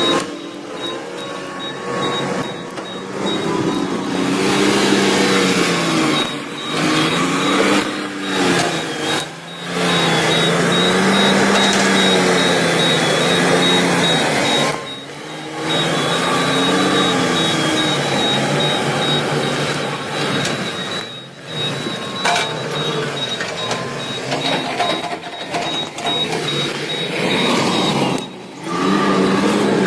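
Excavator diesel engine and hydraulics working, the engine pitch repeatedly rising and falling as the machine takes and sheds load, with a rapid high-pitched pulsing tone over it for much of the time.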